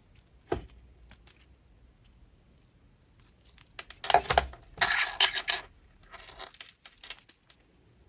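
Wire and small metal parts being worked by hand with jewelry tools: a sharp click about half a second in, light scattered clicks, and near the middle about two seconds of scraping and rustling.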